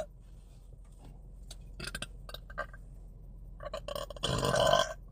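A woman belching once, loud and pitched, for about half a second near the end, after a few faint clicks.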